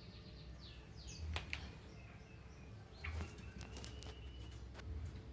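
A lovebird gives short, high chirps that drop sharply in pitch, with scattered clicks between them and a longer held note near the end. A low hum swells about every two seconds underneath.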